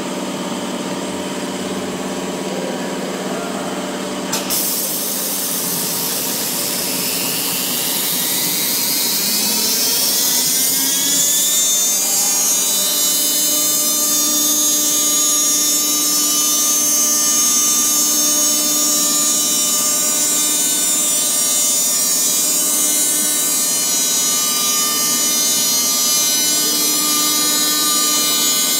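CNC router spindle spinning up: a sharp clack about four seconds in, then a whine rising in pitch over about five seconds. It settles into a steady high whine as the router bit cuts into the board.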